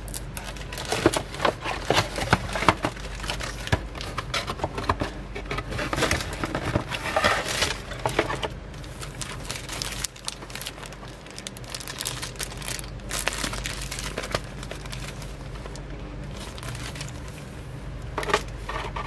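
Clear plastic wrapping crinkling and rustling in irregular bursts as it is handled and pulled off by hand. The crinkling is busiest in the first half, eases for a couple of seconds in the middle, then picks up again with a short burst near the end.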